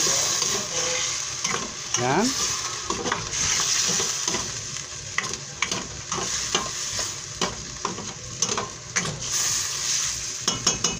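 Chicken liver sizzling as it sautés in a stainless steel pan, with a spatula stirring and scraping it and knocking against the pan many times.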